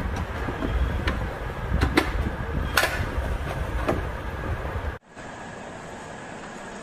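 A few sharp clicks and knocks, like a DVR's metal cover panel being handled and closed, over a low rumbling handling noise. About five seconds in, this cuts abruptly to a steadier, quieter hiss.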